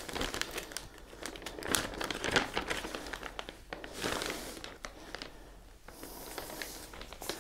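Plastic packaging film crinkling and crackling as hands handle a plastic-wrapped speaker grille over the wrapped speaker, in irregular bursts of small crackles.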